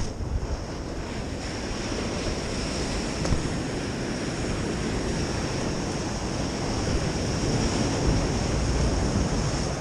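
Ocean surf breaking and washing against a rock jetty, a steady rushing wash of waves, with wind buffeting the microphone.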